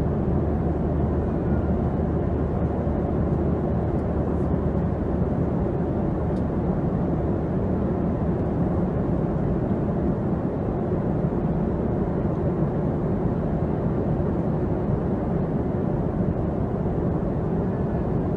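Steady, even roar of a commercial airliner in flight, heard from inside the passenger cabin: engine and airflow noise, deep and unchanging.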